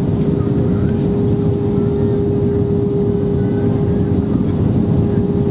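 Steady cabin drone of an Airbus A320-232 in flight, heard from a window seat over the wing: the IAE V2500 engines and the airflow make a constant low roar with a steady hum running through it.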